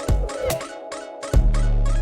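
Intro music with heavy bass notes and sharp drum hits.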